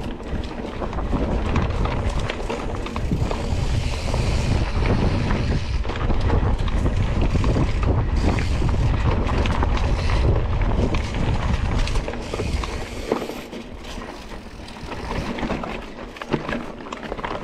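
Wind buffeting the microphone of a mountain bike rider's camera, over the clatter and rattle of the bike on a rough dirt trail. The rumble is heaviest through most of the stretch and eases off for the last few seconds.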